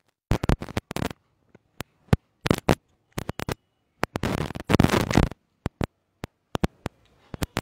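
Microphone noise: irregular crackles and pops, some single clicks and some half-second bursts, with dead silence cutting in between. It is the disturbing sound coming through the mic that students complained of.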